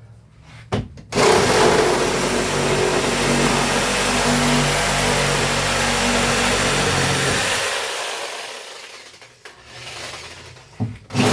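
Reciprocating saw (Sawzall) running and cutting through wood, its motor pitch wavering with the load. It runs for about six seconds and dies away, then starts again briefly near the end.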